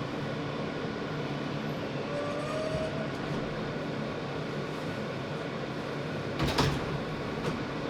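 New York City subway L train running with a steady rumble and hum. A short rising whine comes about two seconds in, and a sharp clunk about six and a half seconds in.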